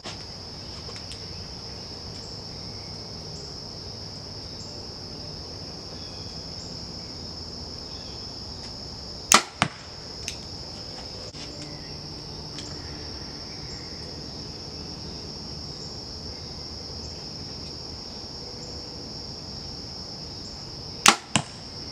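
Two compound-bow shots about twelve seconds apart: each a sharp snap of the string on release, followed about a third of a second later by a smaller knock of the arrow striking the target. Steady high chirring of insects runs underneath.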